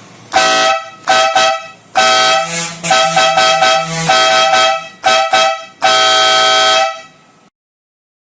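Aftermarket twin-tone horn on a Royal Enfield motorcycle honking loudly in a run of short and longer blasts, two close pitches sounding together. It stops about seven seconds in.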